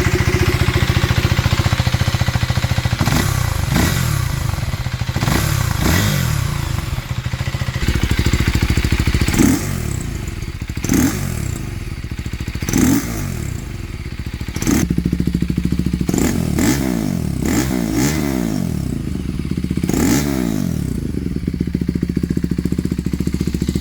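2024 KTM Duke 390's single-cylinder engine idling with about a dozen quick throttle blips, each rev rising and falling back in pitch.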